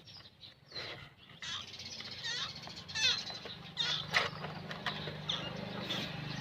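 Repeated short, high, wavering animal calls, scattered irregularly, over a steady low hum that sets in about a second and a half in.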